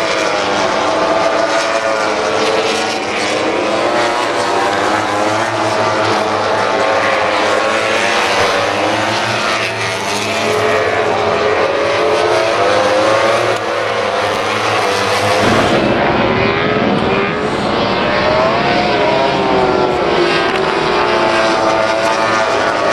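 A pack of MotoGP racing motorcycles with 1000 cc four-stroke engines screaming past. Several engine notes overlap, each rising and falling in pitch as the riders brake, shift down and accelerate through the corner. About fifteen seconds in, the sound changes abruptly.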